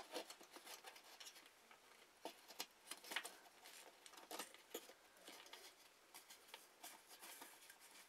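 Faint, scattered clicks and rustles of hands handling a brass pull-chain light fixture base and its switch while fitting it back against the ceiling.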